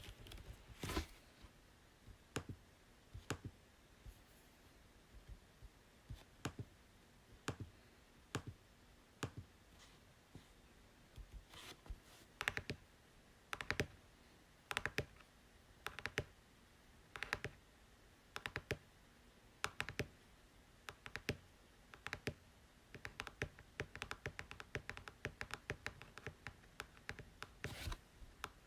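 Computer keyboard keys clicking singly and unevenly, about one press every second or so, then a quicker run of typing near the end.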